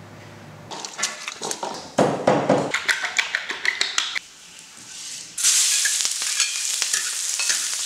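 Rapid clicking of chopsticks beating eggs in a bowl. About five seconds in, a loud sizzle starts as chopped tomato and green onion hit hot oil in a wok.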